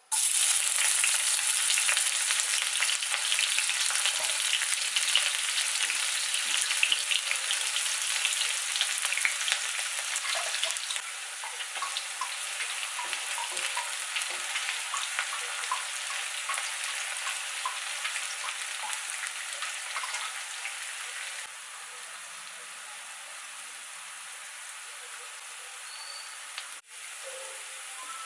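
Masala-marinated chicken legs frying in hot oil in a pan, a steady sizzle full of small pops and crackles. It starts suddenly at full strength and drops to a quieter sizzle in two steps, about a third of the way in and again past two-thirds.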